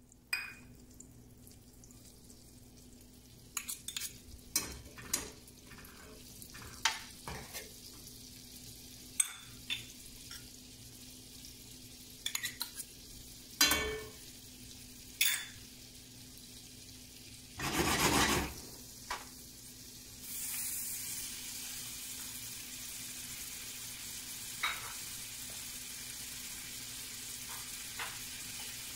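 A metal spoon taps and scrapes against small steel ramekins and a cast iron skillet as chopped shallots, garlic and diced bacon go into melting butter. About twenty seconds in, a steady sizzle of bacon frying in hot butter starts and keeps going.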